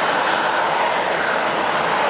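Steady jet engine noise from an airliner, an even rushing sound that holds level throughout.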